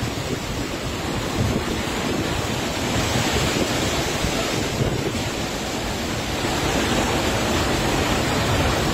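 Torrent of muddy floodwater pouring down a steep hillside after heavy rain, a steady loud rushing of water.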